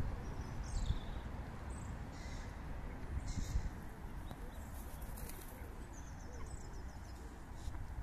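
Small songbirds chirping in short high calls, with a quick trill of evenly spaced notes past the middle, over a steady low rumble.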